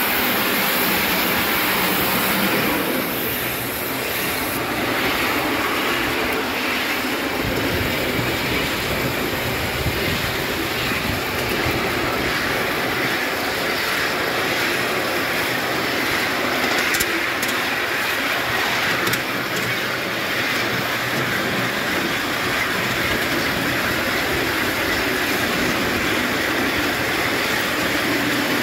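A 5-inch gauge coal-fired live-steam model of a Britannia locomotive running along its track, heard from the driving truck as a steady rush of running noise, with a few faint clicks in the second half.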